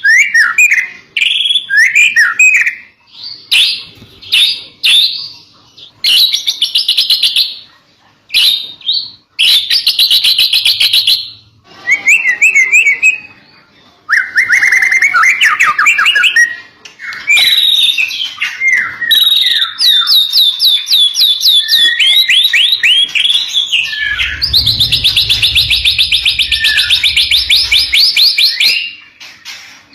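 White-rumped shama (murai batu) singing loud, varied phrases broken by short pauses, full of fast repeated-note trills, with a long unbroken rapid trill near the end.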